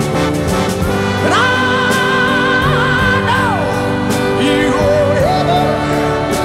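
Background music: a song with a singer holding one long note over steady instruments, then shorter sung phrases.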